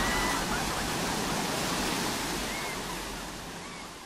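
Ocean surf rushing after a breaking wave, fading away over a few seconds.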